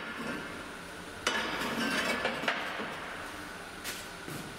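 Welded steel plates clanking as they are handled: a sharp metal clank just over a second in that rings away briefly, a lighter clink about a second later and a faint one near the end.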